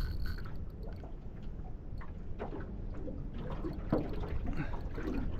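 Choppy water lapping and slapping against the hull of a small aluminium boat, with a steady low rumble of wind on the microphone and a few irregular light knocks and splashes in the second half.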